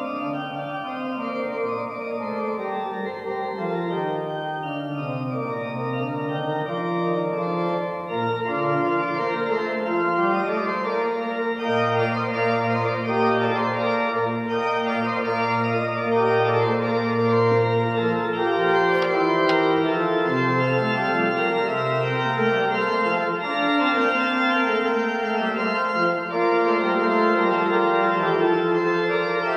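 Hill pipe organ playing sustained chords, with a moving bass line and a long held low note in the middle.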